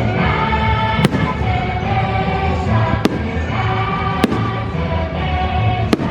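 Fireworks show: four sharp firework bangs, about a second or two apart, over loud show music with long held notes.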